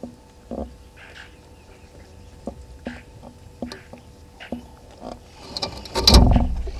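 Vervet monkeys clambering on and handling the camera housing: scattered soft knocks and taps, then a loud close scuffing bump about six seconds in as a monkey's body presses against the camera.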